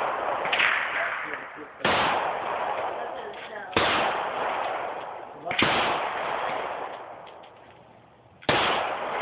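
Springfield XDm pistol in .40 S&W firing four single shots, about two seconds apart with a longer pause before the last, each shot followed by a long echoing tail.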